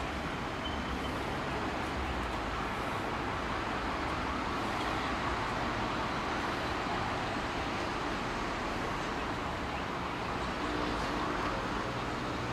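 Steady hum of distant road traffic, with a faint low engine drone coming in near the end.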